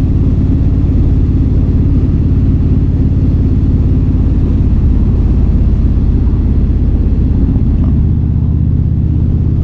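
Indian Super Chief Limited's V-twin engine running steadily at cruising speed, mixed with wind rush, heard through a mic inside the rider's helmet.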